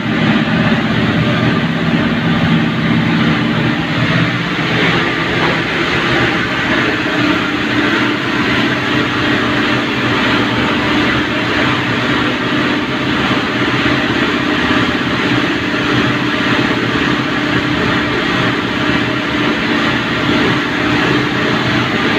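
Steady drone of a WAG-7 electric locomotive's machinery running, heard inside its cab. It is loud and unbroken.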